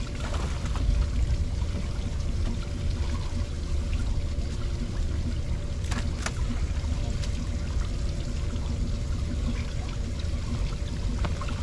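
Water splashing, pouring and trickling as a big fish is scooped in a landing net and lifted, water streaming off the net, over a steady low wind rumble on the microphone. Two sharp clicks about halfway through.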